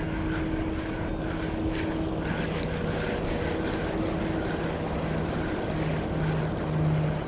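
Small boat's outboard motor running steadily with a low hum, getting louder near the end.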